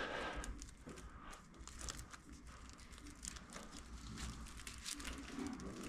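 Faint crinkling and scattered small clicks of a wiring harness being handled and wrapped, over a low steady hum.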